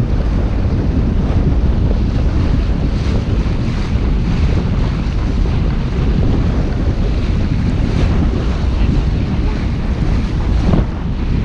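Wind buffeting the microphone on a sailboat under sail, a steady loud rumble, with water rushing past the hull.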